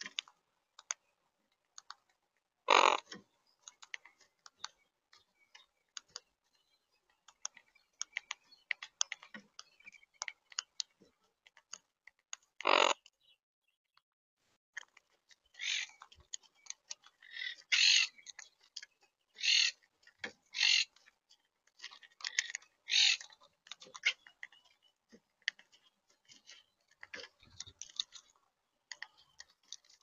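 Monk parakeets feeding at a seed feeder: a steady scatter of small sharp clicks and cracks as their beaks hull seeds, broken by several short harsh squawks, one near the start, one about halfway and a run of them in the second half.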